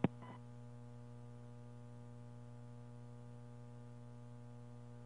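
Steady low electrical hum with a faint hiss on the broadcast audio line, and a single short click right at the start.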